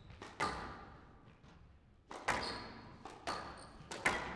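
Squash rally: the ball is struck by rackets and cracks off the court walls, four loud hits with a hall echo and lighter knocks between them, with short high squeaks among them.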